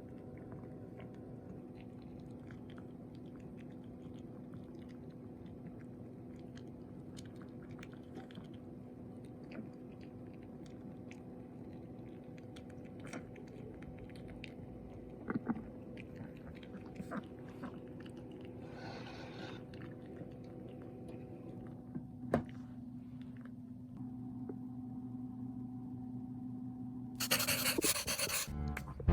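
A dog chewing a treat: faint, scattered crunches and clicks over a steady low hum. Music starts near the end.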